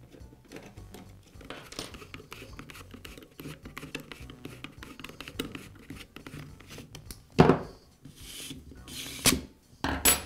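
Hand screwdriver turning screws out of a pneumatic stapler's magazine rail: a run of small clicks and scrapes of metal on metal and plastic. Then a loud knock about seven and a half seconds in and two more near the end, as tools and parts are set down on a wooden workbench.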